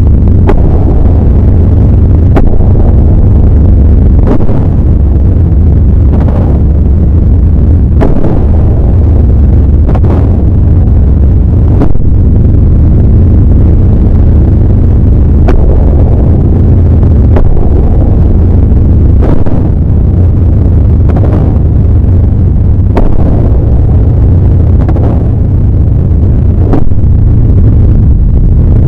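Very loud, heavy low rumble that stays near full level, with a sharp hit roughly every two seconds.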